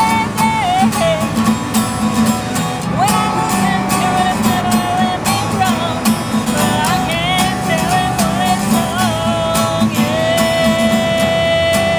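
A voice singing over strummed acoustic guitar, in a folk or country style, with a long held note near the end.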